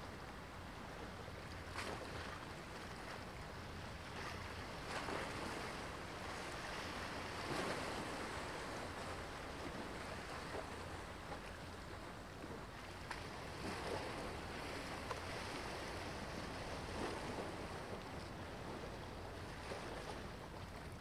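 Small waves washing in soft swells every few seconds over a steady low rumble of wind on open water.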